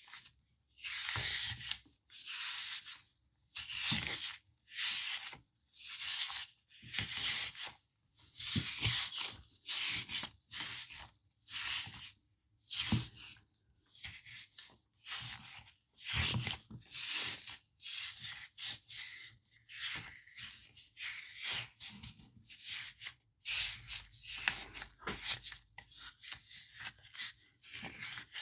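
Sand-filled squishy pug toy being squeezed and stretched by hand: a series of rustling squishes about once a second, coming quicker and more irregularly in the second half.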